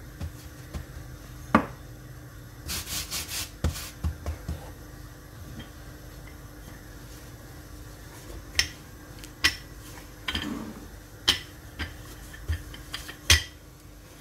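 Wooden rolling pin rolling over laminated pastry dough on a granite countertop: a soft rubbing, broken by a few sharp clacks and knocks of wood on stone, scattered every second or two.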